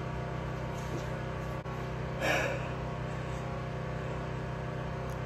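A steady low hum made of several even tones, with one short soft noise about two seconds in.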